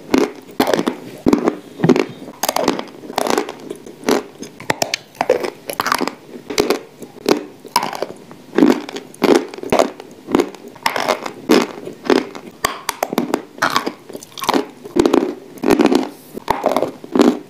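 Close-miked biting and chewing of hard, dry chunks of edible chalk and clay: a steady run of crisp crunches, about one or two a second.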